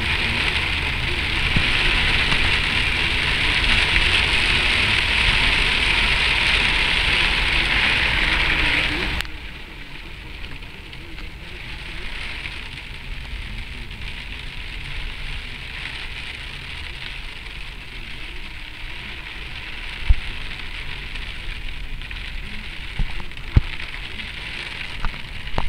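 Heavy rain pouring down in a loud, steady hiss. About nine seconds in it drops suddenly to a much softer rain sound, and a few sharp clicks come near the end.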